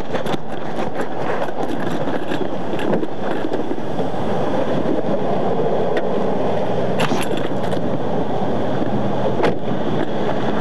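Steady rushing noise with no speech, broken by a few sharp clicks about seven seconds in and again near the end.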